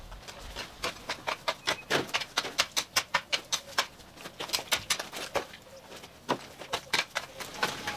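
Irregular crackling and snapping of dry ivy stems and twigs being pulled up and broken, dense at first and then sparser, with a few heavier knocks of a mattock digging into the soil.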